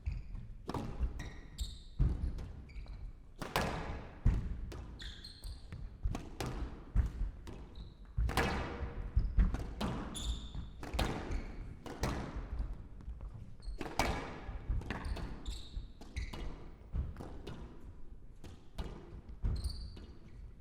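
Squash rally in play: the ball cracks off the rackets and the walls again and again, about one strike every half-second to a second, with short high squeaks of court shoes on the wooden floor in between.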